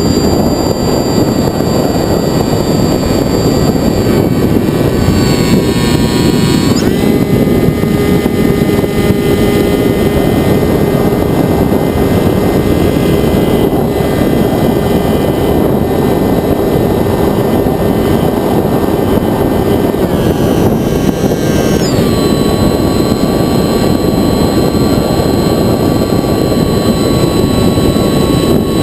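Sky Surfer RC glider's electric motor and propeller running in flight, heard from an onboard camera: a steady rush of prop wash and wind with a high motor whine. The whine drops in pitch about seven seconds in and climbs again near the end as the throttle changes.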